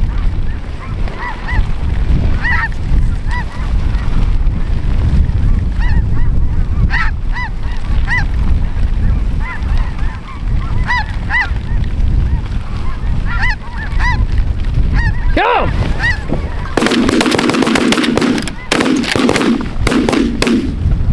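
Snow geese calling: repeated short, high honks, many overlapping, over a steady low rumble of wind on the microphone. Near the end, a few seconds of louder, harsher noise cover the calls.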